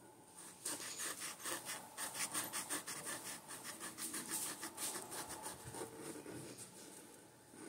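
A pen scratching on paper in quick back-and-forth strokes, about five or six a second, as a drawing is filled in; the strokes start about half a second in and thin out near the end.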